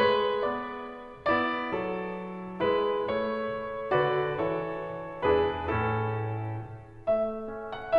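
Slow piano music: chords struck about once a second and left to ring and fade, with a deeper bass note around the middle.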